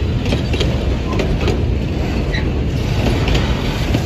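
Narrow-gauge wooden passenger carriages of the Puffing Billy Railway rolling slowly past: a steady rumble of wheels on the rails, with irregular clicks.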